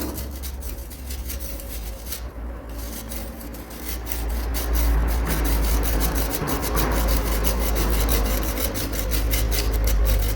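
Dry cement chunks crumbling and crunching: a dense, gritty crackle of many small ticks that gets louder about four seconds in, over a low rumble.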